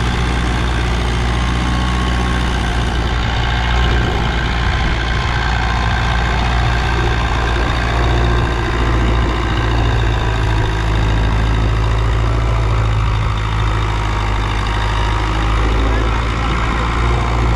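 Farmtrac 6055 tractor's diesel engine running steadily under heavy load while it pulls a cultivator lowered to full depth through the soil.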